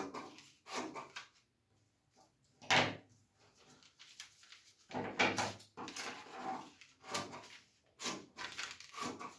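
Scissors cutting through a paper pattern in a series of irregular short snips, with the paper rustling as it is handled.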